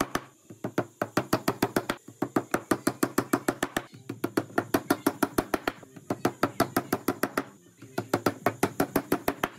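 Claw hammer tapping small nails through a thin panel into the top of a hollow wooden box: quick light taps, about six or seven a second, in runs with short pauses between nails.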